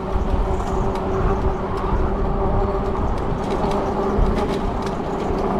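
E-bike motor whining at a steady pitch while riding, over wind rumbling on the microphone.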